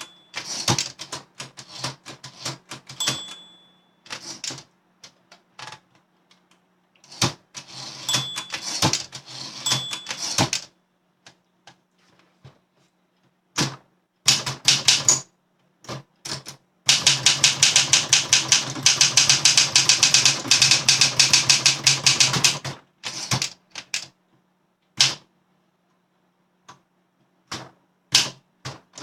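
Olympia SM7 manual portable typewriter being typed on: bursts of sharp key strikes separated by short pauses, with a fast unbroken run of strikes lasting about five seconds past the middle.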